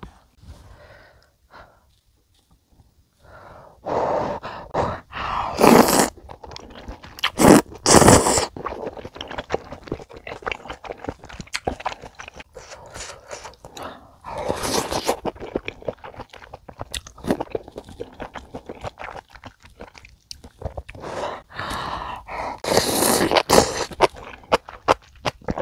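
Close-miked eating of budae jjigae: ham and glass noodles pulled into the mouth in several loud slurps, with chewing and small wet mouth clicks between them. Quiet for the first few seconds.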